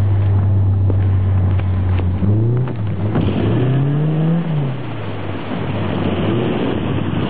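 Car engine heard from inside the cabin, running steadily, then revving up and down twice between about two and five seconds in as the car is drifted on snow, over a constant rush of tyres on packed snow.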